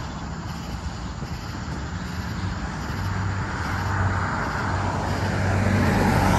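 Motor vehicle running with road noise: a steady low engine drone that grows louder through the second half.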